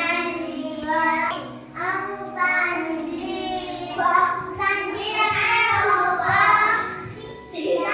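Young girls singing a song together, in phrases with short pauses between them.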